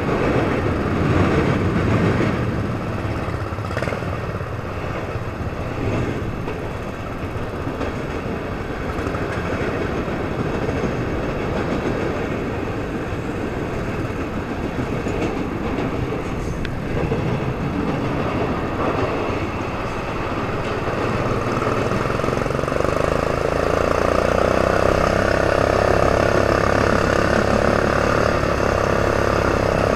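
Craftsman LT1000 riding mower's engine running steadily as it is driven along a sandy trail, with a freight train passing on the trestle overhead. The sound grows a little louder and fuller about three-quarters of the way in.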